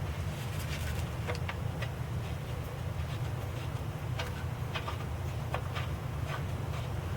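Irregular light metallic clicks and taps of hand tools and bolts being handled while the starter is refitted, over a steady low hum.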